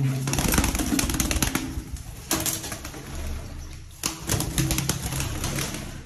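Domestic pigeons flapping their wings as they are shooed out of a small tiled room, in three bursts of fluttering.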